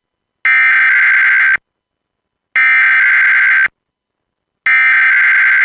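Emergency Alert System SAME header: three bursts of buzzy digital data tones, each about a second long with about a second of silence between, encoding the start of an alert message, here a weekly test.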